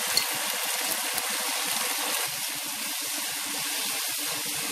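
Shallots, garlic, tomato and coconut pieces sizzling in oil in an aluminium kadai while being sautéed, a steady hiss.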